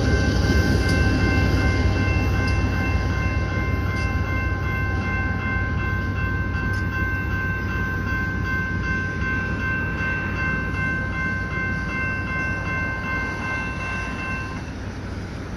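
A railroad crossing bell rings steadily over the fading rumble of a passing freight train. The bell stops near the end as the crossing gates go up.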